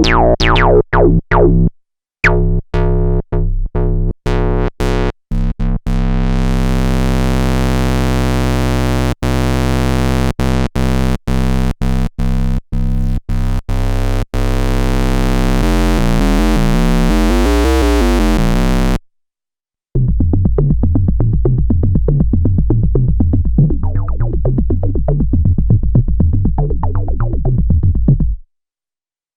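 Korg monologue monophonic analog synthesizer heard straight from its output, playing several factory preset sounds. Short repeated notes that die away come first, then a long held buzzy note that cuts out briefly now and then. After a short pause there is a fast, busy sequenced pattern.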